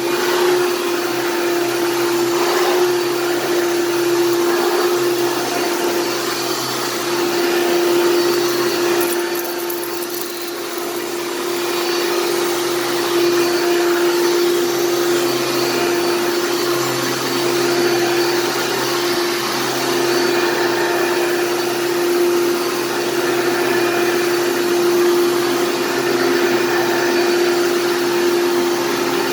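Hoover PowerMax II upright vacuum cleaner running, a steady motor whine over the rush of air, dipping slightly in level about ten seconds in.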